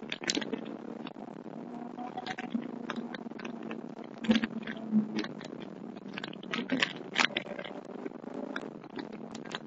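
Car driven hard through an autocross course, heard from inside the car: a steady drone of engine and road noise with many sharp clicks and knocks, several of them louder in the middle.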